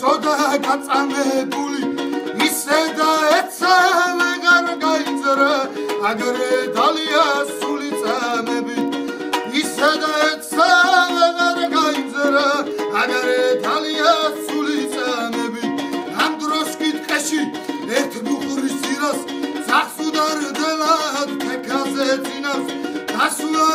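Music: a plucked string instrument playing with a moving melody over held low notes.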